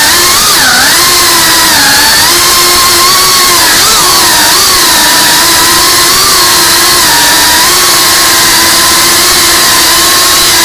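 Small FPV quadcopter's electric motors and propellers whining, the pitch wavering up and down with the throttle. Heard loud and close from the drone's own camera, over a heavy hiss.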